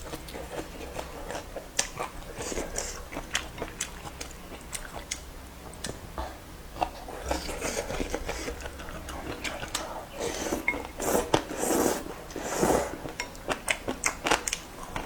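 A person eating noodles up close: chewing and biting, with many small clicks of utensils against a bowl. There are a few longer noisy bursts in the last few seconds.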